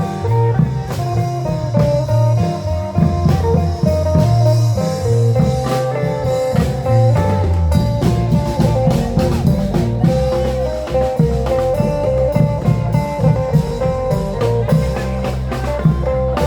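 Isan klong yao (long-drum) band playing lively procession music: a steady drum beat and bass under a held, winding melody line.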